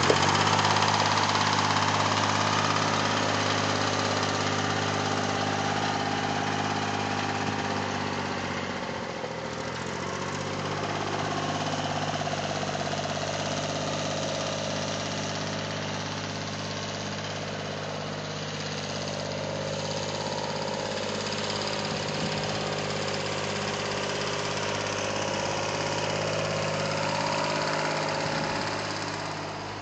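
Yanmar 336D three-cylinder diesel tractor engine running steadily after its rebuild, its speed shifting briefly about eight to ten seconds in.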